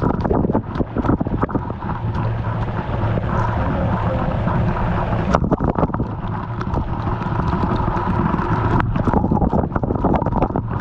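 Steady rushing of waterfall water, with wind buffeting the microphone in irregular gusts.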